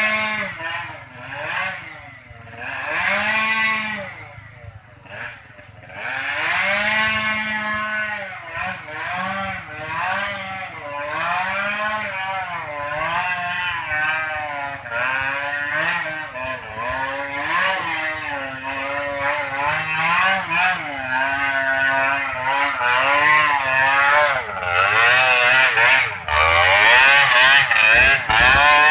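Small motorcycle engine revving up and down again and again while climbing a steep hill, its pitch rising and falling every second or two. It grows louder and rougher near the end.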